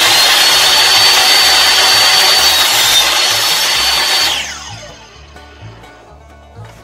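Portable table saw running at full speed with a high steady whine as it crosscuts a stack of thin pallet-wood slats. It is switched off about four seconds in, and the blade spins down with a falling pitch.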